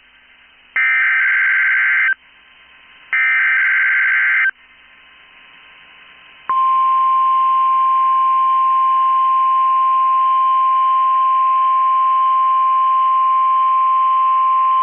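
NOAA Weather Radio Required Weekly Test signal: two bursts of screeching SAME digital header tones, about a second and a half each, then a two-second gap. The steady 1050 Hz weather-radio alert tone starts about six and a half seconds in and holds.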